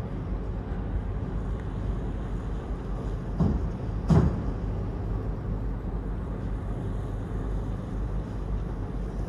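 Car ferry's engine rumbling steadily as the ferry docks. Two short thumps come a little under a second apart near the middle, the second louder.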